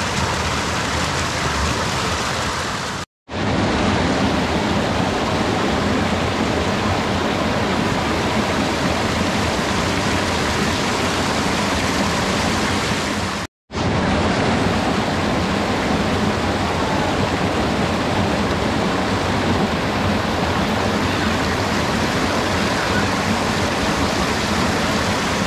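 Steady rushing of flowing water, broken by two brief silences, about three seconds in and about thirteen seconds in.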